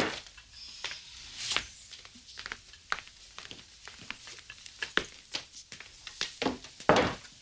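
Footsteps on a hard floor: irregular sharp clicks and taps of shoes as a person walks across a room, with a few louder knocks.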